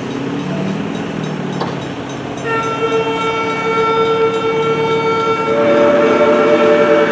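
Steam locomotive 643's six-chime boiler-tube whistle blowing a long chord, starting about two and a half seconds in, with the chord shifting to take in a new lower note about halfway through. Under it, the rumble of the approaching locomotive grows steadily louder.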